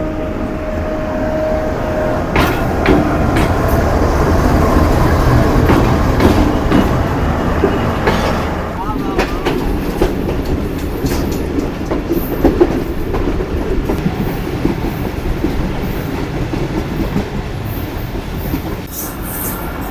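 Passenger train running on the rails: a steady rumble with sharp clicks of wheels over rail joints, swelling a couple of seconds in and easing off after about eight seconds.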